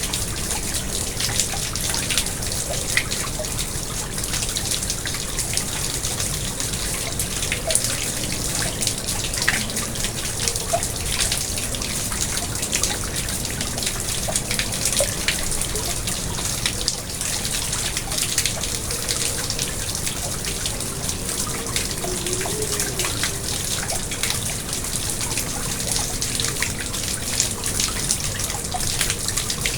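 Pond water trickling and splashing steadily, with many small drips and plinks scattered through it.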